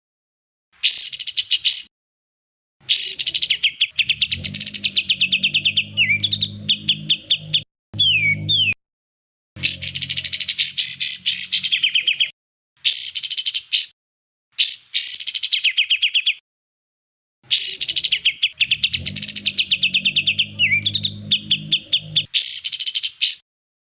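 Songbird masteran (training) recording: phrases of rapid-fire, evenly repeated high chirping notes, each cut off abruptly with sharp gaps between phrases. The same phrase comes back looped, and a low hum runs under some of the phrases.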